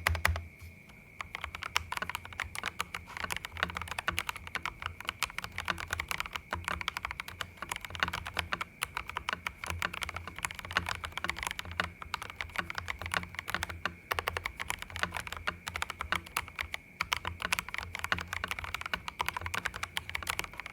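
FL Esports FL980 v2 mechanical keyboard with stock Kailh Box Red v2 linear switches being typed on fast: a dense, uneven stream of key clacks. A few louder presses are heard in the first half-second, then a short lull before steady typing.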